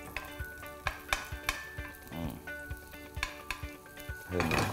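Garlic frying gently in olive oil in a frying pan on low heat, sizzling lightly, while a metal spoon stirs it with many small scrapes and taps against the pan.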